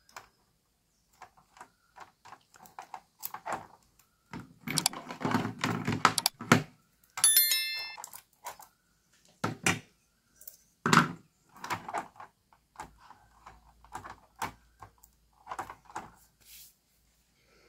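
Orange insulating tape being pulled off its roll, cut with scissors and pressed onto a circuit board: rustling, a long stretch of tape tearing off the roll, and sharp snips and clicks. About seven seconds in, a short high bell-like ding rings for about a second.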